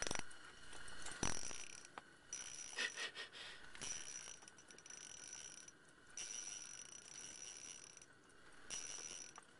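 Spinning reel's drag buzzing in a steady high whine as a big sturgeon strips line off light 4 lb test, in several runs of one to two seconds with short pauses between. Two sharp knocks near the start.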